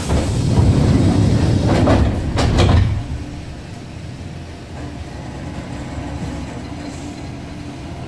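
A train rumbling past on the adjacent track, a loud low rumble with a few wheel clacks, dying away after about three seconds. It leaves the steady hum of the standing train.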